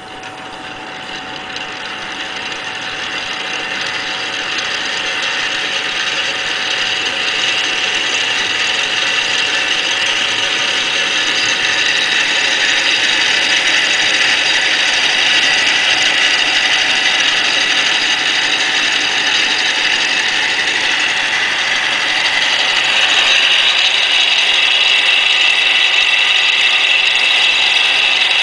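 Model Searl Effect Generator running, its ring of rollers spinning around the central ring while the small relay-type switches around it click in rapid succession, a dense mechanical rattle. It grows louder over the first several seconds, steps up a little again near the end, and otherwise holds steady.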